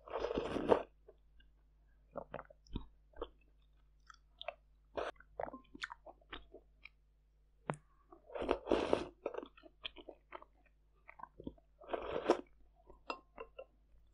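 Mouth eating sounds, loud by design: three slurps of fermented sweet rice soup off a spoon, at the start, about eight and a half seconds in and about twelve seconds in. Between them come wet chewing and clicking mouth noises from the soft glutinous rice balls.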